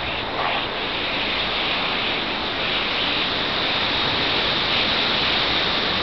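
A huge flock of small birds overhead, their massed calls blending into one steady, dense hiss.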